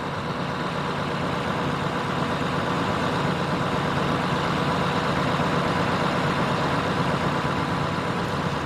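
A heavy engine idling steadily, plausibly the crane lifting the recovered car out of the river, with a faint steady hum over it.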